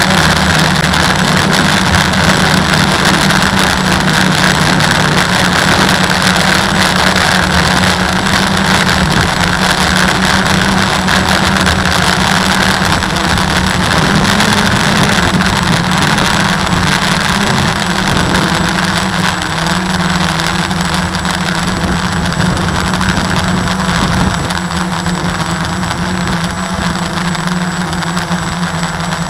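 Walkera QR X350 quadcopter's motors and propellers running steadily while it holds a GPS hover in place, heard up close through its own onboard camera: a loud, even buzz over a low hum that wavers slightly in pitch.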